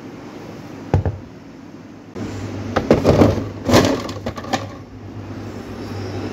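A plastic pitcher knocked about a second in, then set into a refrigerator with several knocks and clatter against the shelf and bottles, over a steady low hum from about two seconds in that stops near the end.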